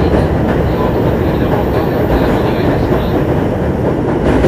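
Running sound inside a 205-0 series electric train's motor car (MoHa 205), which has inner-fan traction motors: a steady rumble of wheels on rail and motor noise.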